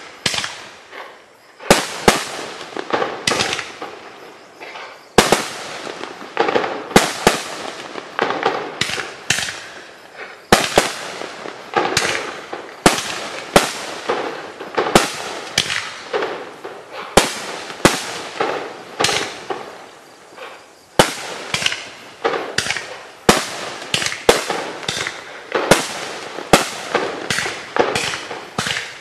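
A 2.25-inch, 35-shot fireworks cake firing ring shells: a long run of sharp launch thumps and bursts, about one or two a second and unevenly spaced, each report trailing off in a short echo.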